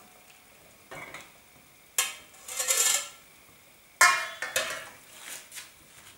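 Stainless steel cookware clinking as a slotted skimmer lifts boiled calf's brain from the pot into a steamer basket to drain. A sharp metal clang comes about four seconds in, followed by a few lighter clinks.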